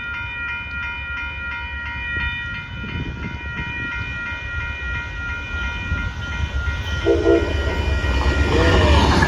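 Amtrak Texas Eagle passenger train's horn sounding one long, steady chord at the crossing, fading out about six seconds in. Under the horn, the rumble of the train passing at speed grows louder toward the end.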